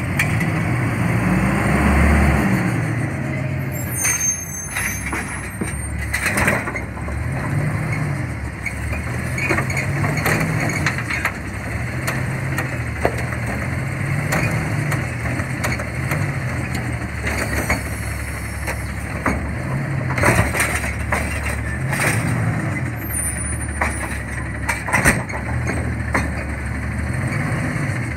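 Garbage truck's CNG engine running and repeatedly revving up and easing off as the Heil Rapid Rail automated side-loader arm grabs, lifts and dumps a wheeled cart. Several sharp knocks of the cart and arm stand out, a few of them close together a few seconds in and more near the end.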